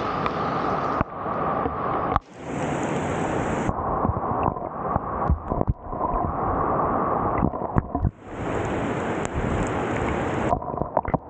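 Heavy tropical downpour with rainwater runoff rushing over a concrete path, heard right at the water's surface: a dense wash of rain and flowing water with many sharp splashes and drops. The tone dulls and clears abruptly several times.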